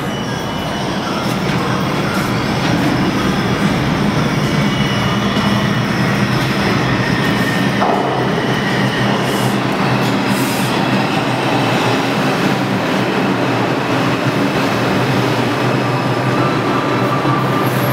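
R142-family New York City subway train approaching on the local track and pulling into the station. Its running noise builds over the first few seconds and then holds loud and steady, with a low hum running under it.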